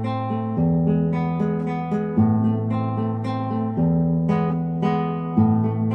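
Background music: strummed acoustic guitar chords, with the chord changing about every second and a half.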